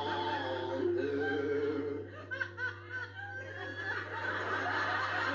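A man's comic singing, a held note that ends about two seconds in, followed by a studio audience laughing. A steady low mains hum runs underneath.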